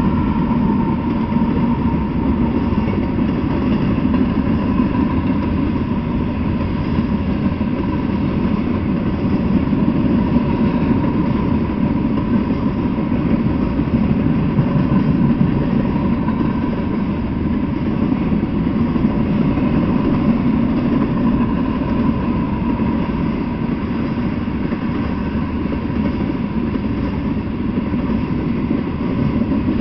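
Freight train passing: a steady low rumble of diesel locomotives and then tank cars rolling over the rails.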